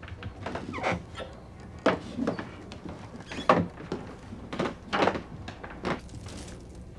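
A door being handled: about six short knocks and thuds, spaced irregularly a second or so apart.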